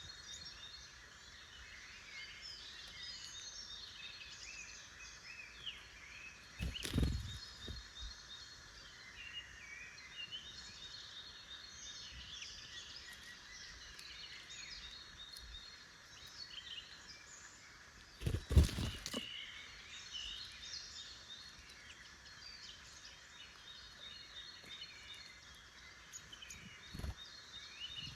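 Woodland birdsong chorus: many small songbirds chirping and singing continuously. Two brief dull bumps close to the microphone break through, about a quarter of the way in and, louder, about two-thirds of the way in.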